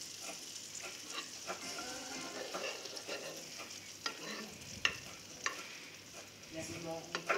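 Pieces of testicle frying in butter in a non-stick pan, with a steady sizzle. A utensil knocks and scrapes against the pan about eight times as the pieces are stirred.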